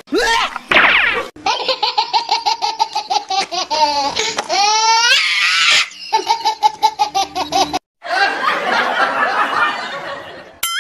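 Dubbed-in laughter sound effect: a fast run of repeated high ha-ha pulses with a rising and falling whoop in the middle, then, after a short break, a denser stretch of many people laughing.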